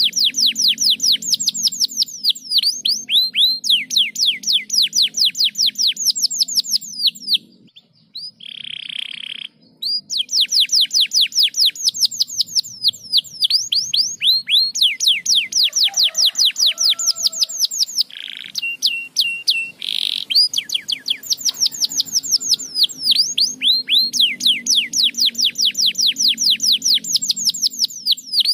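Canary singing long, fast trills of rapidly repeated falling notes, broken by a short pause about 8 s in and a few brief held whistled notes. A faint steady low hum runs underneath.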